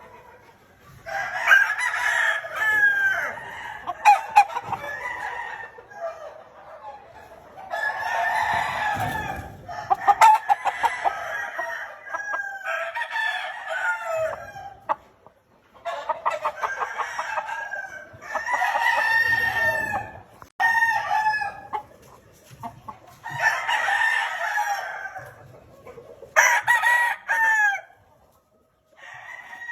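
Several gamefowl roosters crowing, one after another and sometimes overlapping, with about ten crows in all.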